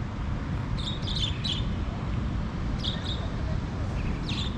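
Birds chirping in short high bursts, three times, over a steady low outdoor background rumble.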